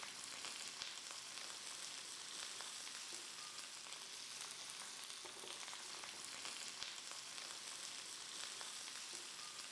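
Faint, steady sizzling of stir-fried vermicelli noodles and vegetables in a wok, with small crackles here and there. The pan is still hot after the burner has been turned off.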